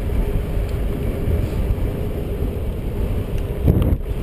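Wind rushing over the microphone of an action camera on a moving road bike, mixed with tyre and road rumble and a steady hum. It gets briefly louder near the end.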